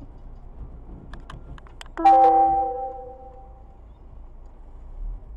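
A few light clicks, then a sharp metallic clang about two seconds in that rings on and fades over a second or so, as a truck-mounted crane boom catches on a semitrailer and debris falls to the road.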